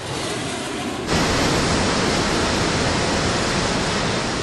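Steady rushing roar of a VTOL aircraft's engines. It jumps louder about a second in and then holds even.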